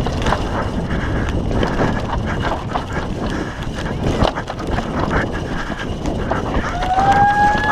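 Downhill mountain bike, a YT Tues, being ridden fast over a rough, loose dirt track: constant rattling and clattering from the chain, suspension and tyres over holes and bumps, with wind rushing on the microphone. Near the end a short, held high-pitched tone rises slightly over the rattle.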